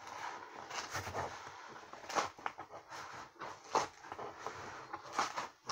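Small cardboard shipping box being worked open by hand: irregular scraping and crackling of the cardboard, with a few sharper, louder scrapes or rips.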